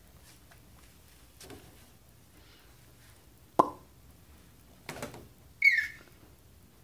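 Hands slapping and knocking on a plastic playpen gate panel: a few scattered taps, one sharp loud knock about halfway through, and a rougher knock a second later. A short, high squeak that falls in pitch follows near the end.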